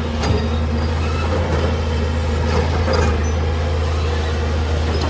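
Heavy machine's engine running steadily at a constant speed, a low even hum with a few faint clicks and knocks over it.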